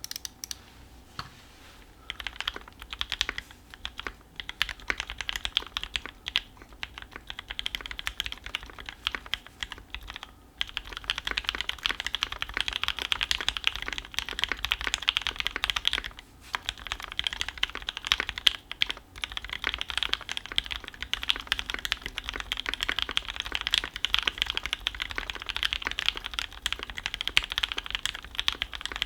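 Typing on a Percent Studio Skog Reboot mechanical keyboard with lubed, filmed Gateron Ink Black V1 linear switches, an aluminium plate, a silicone dampener between plate and PCB, and GMK keycaps. A few separate keystrokes come first, then steady fast typing from about two seconds in, with brief pauses. A low PC hum sits underneath.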